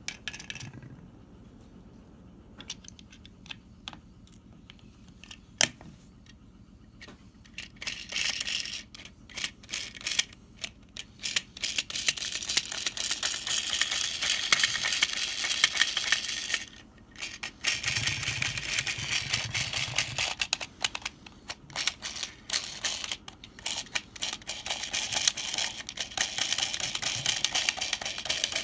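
Small plastic parts of a toy candy washing machine clicking and rattling: a few scattered clicks at first, then a dense, rapid rattle from about eight seconds in, with a short break near the middle.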